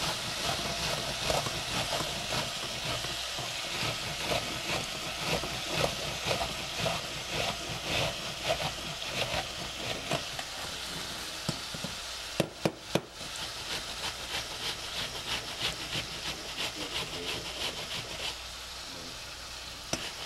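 Ground meat sizzling as it fries in oil in a pot, while an onion is rubbed back and forth on a flat metal hand grater held over the pot, giving a quick repeated rasping. A few sharp knocks come a little past halfway.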